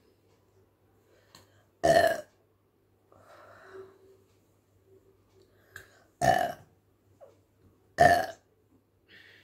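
A woman burping three times, each burp short and loud: about two seconds in, just past six seconds and about eight seconds in. The burps come from chugging fizzy cumin masala soda.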